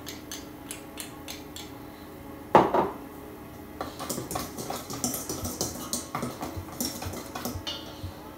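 Light clinks of a measuring spoon. About two and a half seconds in comes one loud knock against a stainless steel mixing bowl, then a quick run of clinking and scraping as a utensil stirs dry ingredients in the bowl.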